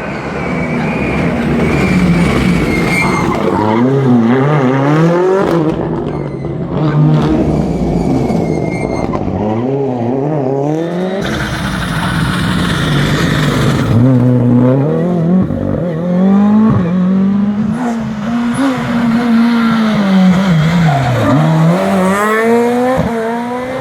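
Rally car engine revving hard through the gears, the pitch climbing and dropping again and again with each shift and lift, with a rushing noise from about eleven to fourteen seconds in.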